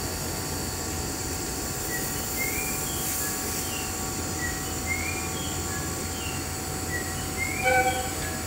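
701 series electric train running as it departs: a steady running noise with several steady high tones over it and short rising chirps repeating through it, with a brief louder sound near the end.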